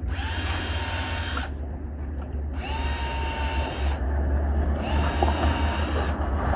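Cordless drill with a self-centering hinge bit drilling pilot holes for hinge screws in a soft alder cabinet door: three short runs of about a second and a half each. The motor whine rises in pitch at the start of each run, then holds steady. A steady low hum sits underneath.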